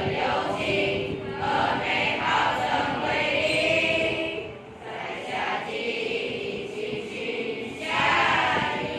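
A children's choir singing together in unison, phrase after phrase, with a brief pause between phrases about halfway through.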